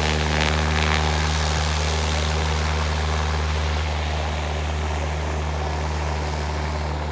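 Small single-engine propeller plane's engine running steadily on the ground before take-off: an even, low engine drone with a hiss over it, easing off slightly near the end.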